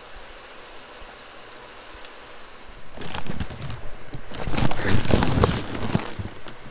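Onions and garlic sizzling softly in hot butter and oil in a cast-iron Dutch oven. About three seconds in, about a cup of dry rice is poured in, and the pot turns to a louder sizzle full of quick pattering and crackling.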